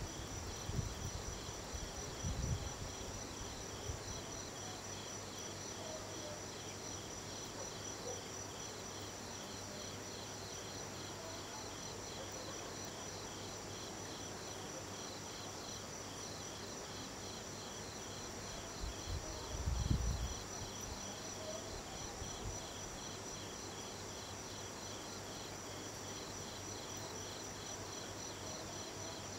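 Night insects, crickets among them, chirping in a steady, evenly pulsed rhythm over a continuous high trill. Brief low rumbles come near the start and again about two-thirds of the way through.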